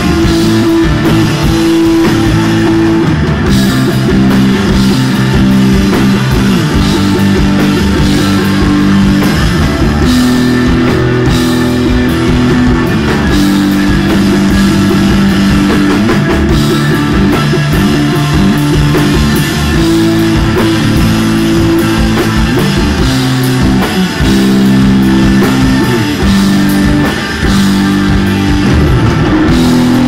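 Live instrumental desert rock: electric guitars holding sustained low notes over a drum kit, played loud.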